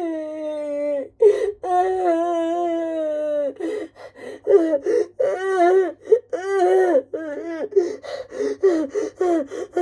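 A woman crying hard. She gives two long drawn-out wails, the second about two seconds long, then breaks into a run of short sobbing gasps.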